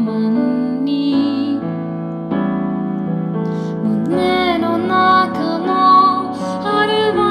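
Background music: an instrumental passage of a song, with long held keyboard notes and a melody line coming in about four seconds in.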